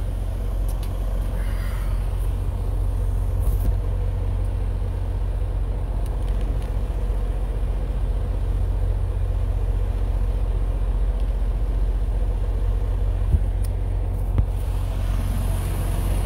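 Semi truck's diesel engine idling, a steady low rumble heard from inside the cab, with two sharp clicks near the end.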